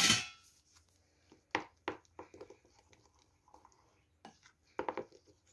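Black plastic spatula stirring mashed banana and egg into flour in a glass bowl: a sharp clink at the start, then scattered soft knocks and scrapes against the glass.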